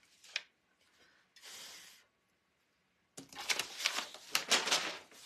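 A few faint scrapes and a soft hiss, then a pause; about three seconds in, a sheet of brown kraft paper rustles and crinkles for about two seconds as it is picked up together with a wooden cutting board.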